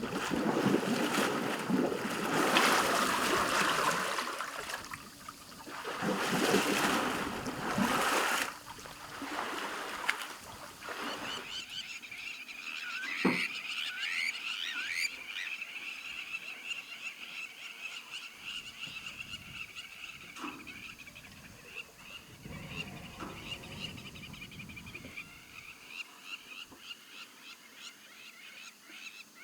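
Frogs calling in a steady chorus of rapid, repeated notes, joined now and then by single louder calls. Over roughly the first eight seconds, loud surges of rushing noise cover them.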